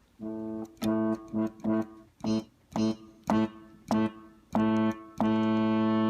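Casio WK-6500 electronic keyboard playing a low brass (tuba-based) layered voice set up to imitate a cruise ship horn: the same low note is pressed repeatedly in short stabs, then held for about a second and a half near the end.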